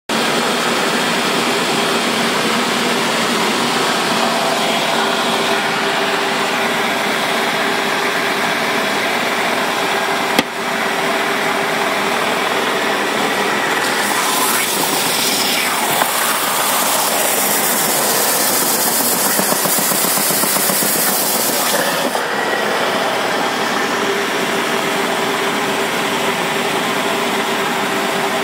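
Bench belt sander running steadily with a motor hum, and a single sharp click about a third of the way in. About halfway through, for about eight seconds, a loud high hiss as the wooden box is pressed against the moving sanding belt.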